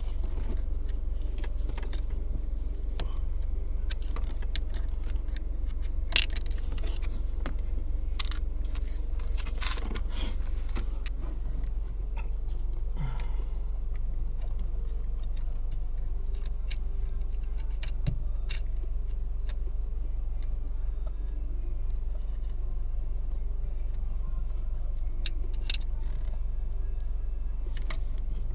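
Loose coins clinking and scraping as they are picked out of a car's shifter assembly: scattered sharp metallic clicks, more of them in the first half, over a steady low hum.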